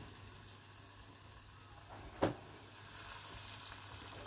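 Radish pakoras deep-frying in hot oil in a kadai: a steady sizzle with fine crackles. A single sharp knock about halfway through.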